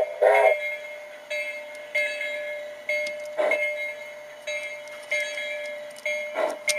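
Locomotive sound: two short whistle toots, then a bell ringing with repeated strikes, roughly one to two a second, over a steady ringing tone.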